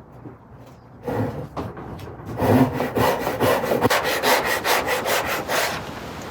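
Hand saw cutting wood in even back-and-forth strokes, about three a second, that start a little over two seconds in after some lighter scraping.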